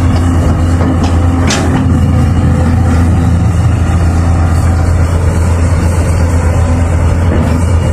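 Caterpillar hydraulic excavator's diesel engine running steadily under load while digging, with a deep hum, and a short high-pitched squeal about a second and a half in.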